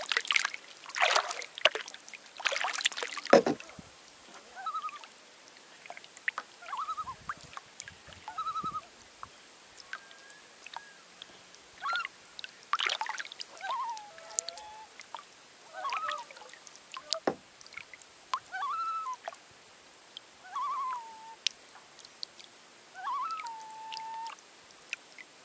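Kayak paddle strokes splashing and dripping for the first few seconds, then a series of short, bending and trilling bird calls every couple of seconds.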